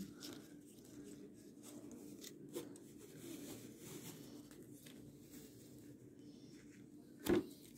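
Faint rubbing of plastic gift ribbon drawn along a scissor blade to curl it, with a few soft ticks and one sharp click near the end.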